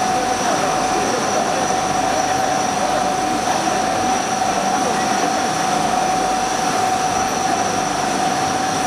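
CNC turret lathe cutting a part under flood coolant: a steady whine from the machine over the hiss and splash of coolant spraying on the spinning chuck.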